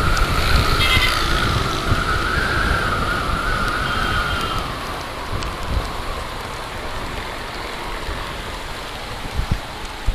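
Yamaha YBR 125's single-cylinder engine running at cruising speed with wind rushing over the microphone. A wavering high tone sounds through the first half and fades out about halfway.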